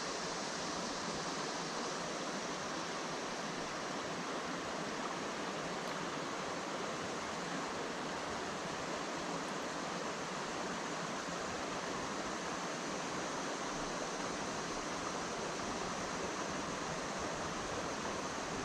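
Creek water flowing, a steady, even rush with no breaks or changes.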